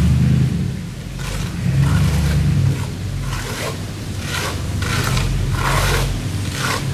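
Rhythmic scraping strokes of a hand tool working stucco, about eight strokes roughly two-thirds of a second apart starting a second in, over a steady low engine hum.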